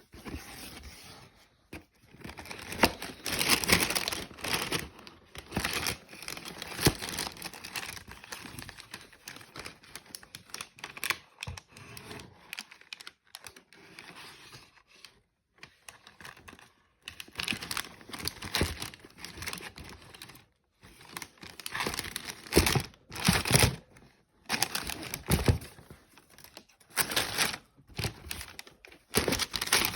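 Packaging being handled and opened by hand: paper and cardboard crinkling and rustling in irregular bursts, with brief pauses and a few short knocks.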